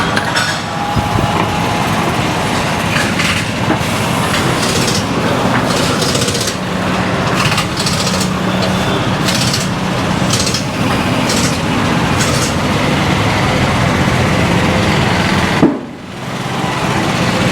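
Tyre-fitting work noise: machinery running steadily with irregular clanks and knocks over it, breaking off briefly near the end.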